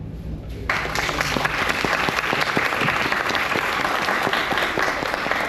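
A seated group applauding. The clapping breaks out suddenly under a second in and keeps up steadily.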